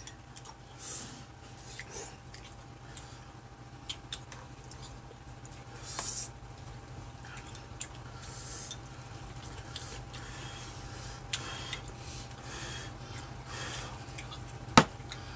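Two people eating Chapagetti black-bean instant noodles: short slurps and chewing, with light clicks of chopsticks against bowls and a pan, and one sharper knock near the end, over a steady low hum.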